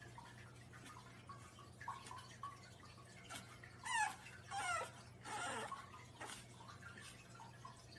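Puppy whimpering faintly: a few short high whines that fall in pitch, about four to five seconds in, over a steady low hum.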